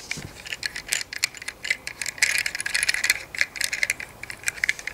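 Rapid, irregular clicking and rattling, with a brief hiss a little past the middle.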